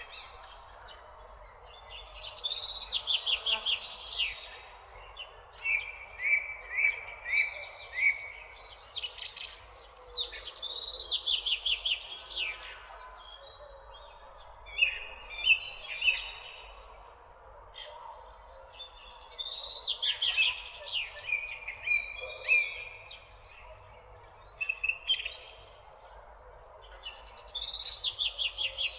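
Songbirds singing: repeated short phrases of quick downward-sweeping notes and rapid trills, coming every few seconds with pauses between. A steady background hiss runs underneath.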